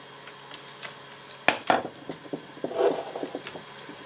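Handling noise from wiring work in a cordless circular saw's plastic housing: scattered light clicks and knocks, the sharpest about one and a half seconds in, and a short rub of wire or plastic just before three seconds.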